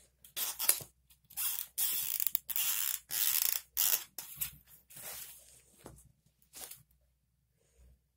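A cleaning rod with a rag being worked back and forth through an air rifle's rifled barrel: a run of about ten scraping strokes that stops about seven seconds in. The rag is scrubbing rust and oil out of the bore.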